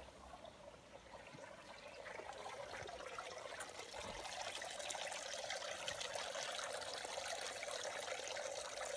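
Small garden waterfall splashing and trickling into a pond, a steady rush of falling water that grows louder over the first few seconds and then holds even.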